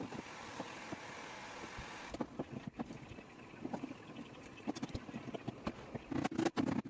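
A steady hiss for about the first two seconds, then scattered light taps and knocks, several louder ones close together near the end.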